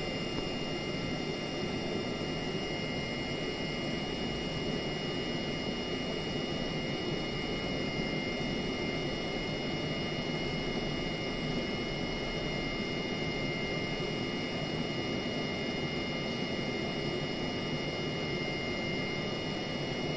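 Webasto Thermo Top C heater running in its warm-up cycle: its combustion air fan gives a steady rushing noise with a steady high whine, with no fuel being pumped yet.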